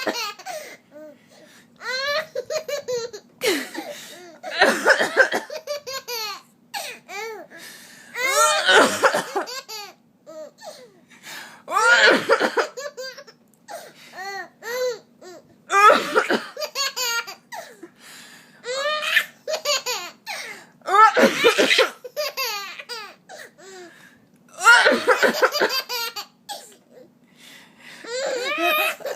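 Baby laughing in repeated fits, each set off by an adult's short cough, about every three to four seconds.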